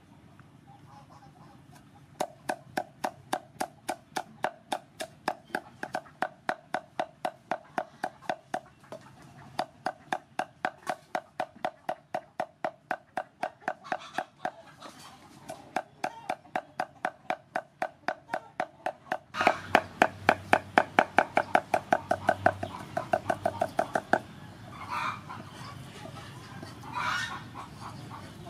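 A cleaver chops dried red chillies on a wooden chopping board in steady knocks, about three a second. For the last few seconds before it stops, the chopping turns louder and quicker.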